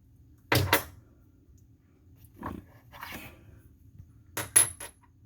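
Hammer striking a drill bit used as a punch against the knockout plug in a garbage disposal's dishwasher inlet, the plug that keeps the dishwasher from draining. Sharp metallic knocks come in two pairs, about half a second in and again near the end, with two softer knocks between, and the last strike leaves a brief high ring.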